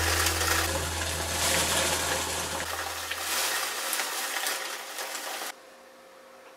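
Dried peas, used as blind-baking weights, pouring out of baking parchment into a plastic tub: a dense rattling hiss of many small clicks that cuts off suddenly about five and a half seconds in.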